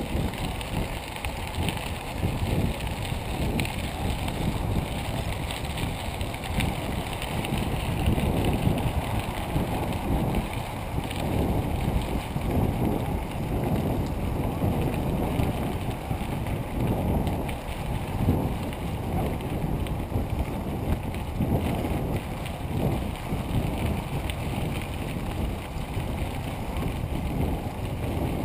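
Wind buffeting the microphone of a moving bicycle, with uneven gusty rumble, mixed with tyre noise on a crushed-stone trail.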